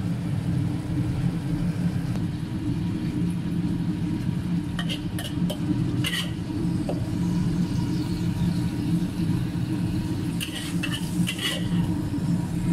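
A metal ladle scraping and clinking against a wok as stir-fried fava beans and minced pork are scooped out, a few strokes around the middle and a cluster near the end, over a steady low rumble.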